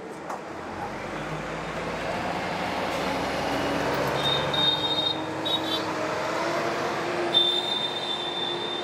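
Road traffic: a motor vehicle running past, a rumble that swells over the first few seconds, its engine note slowly rising, with a high steady whine that comes and goes in the second half.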